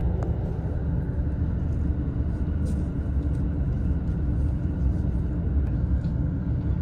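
Japanese commuter train running at speed, heard from inside a passenger car: a steady low rumble of wheels on the track and running gear.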